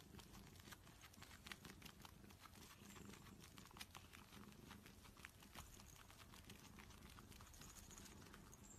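Near silence: faint scattered clicks and rustling, from a cat kneading and hooking its claws into a knit sweater.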